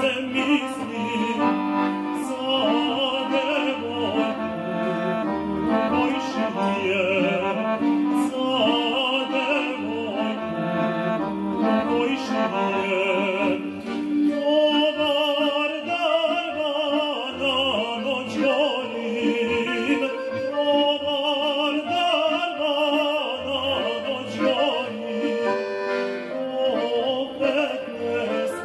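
Male voice singing a traditional Serbian folk song, with much wavering ornament, accompanied by a piano accordion.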